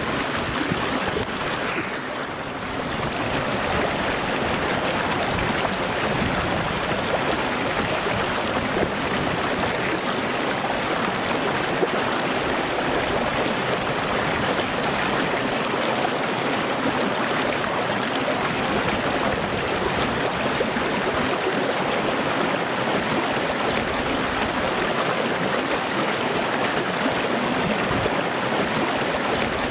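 Small, shallow rocky stream running over stones: a steady rushing and babbling of water.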